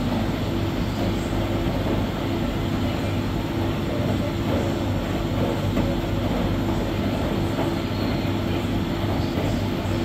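Electrolux Professional WN6-14 commercial front-loading washer in its rinse cycle, its drum turning the wet laundry over with a steady mechanical hum.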